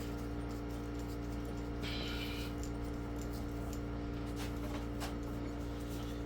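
Steady low electrical or machine hum, with a few faint clicks and a short high squeak about two seconds in.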